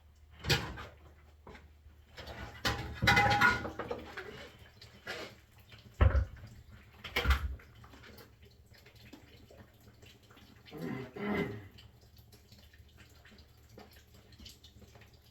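Irregular clunks, knocks and scraping from hands-on work on a water heater's plumbing and fittings, with a few sharp knocks and a longer rattling scrape a few seconds in.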